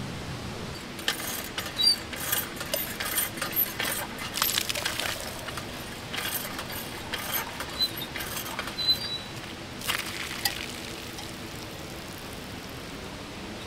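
Hand-operated cast-iron water pump being worked: an irregular run of metallic clanks and clinks from the pump handle, with water running into a small kettle held under the spout. The clanking stops about three-quarters of the way through.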